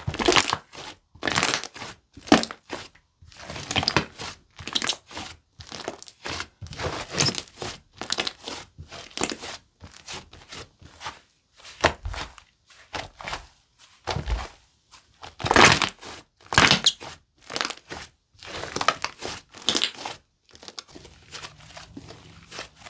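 Thick cookie-dough-textured slime (a mixed wood, amazon, clear and clay slime) being squeezed, pressed and pulled by hand, giving irregular crackling, crushing squelches about once or twice a second. The handling gets softer near the end.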